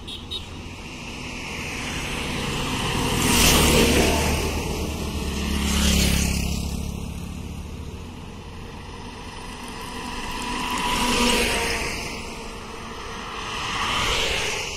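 Highway traffic passing close by: four vehicles go by one after another, each a swell of engine and tyre noise that rises and fades. Among them are a truck and, near the end, a car.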